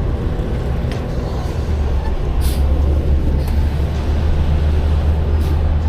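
Low, steady rumble of an idling vehicle engine that grows stronger about two seconds in, with two short hisses.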